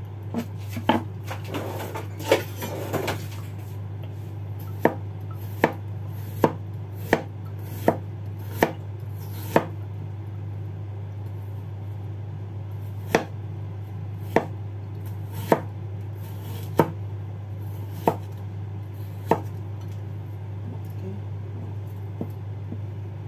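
Kitchen knife slicing ginger on a cutting board: single sharp knocks of the blade on the board, a quick cluster at first, then an even run of knocks a little under a second apart, a pause of a few seconds, and another run about a second apart. A steady low hum runs underneath.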